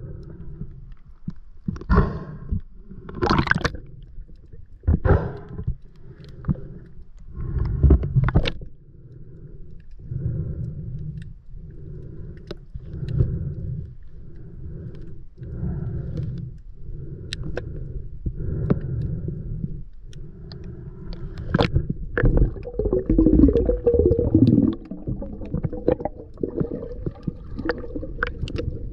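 Muffled underwater sound of a diver swimming, picked up through a camera housing. A low swishing water noise pulses about once a second, with scattered sharp clicks, and grows louder and more churning near the end.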